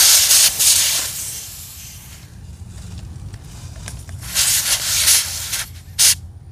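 Air hissing from a trailer tire's valve stem as a screw-on hose chuck is threaded onto it. The hiss comes in spurts: a loud one that fades about a second in, another about four seconds in, and a short sharp one near the end. The tire holds about 80 PSI.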